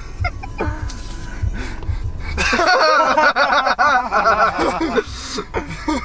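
A burst of hearty laughter starting about two and a half seconds in and lasting some two and a half seconds, over a low rumble.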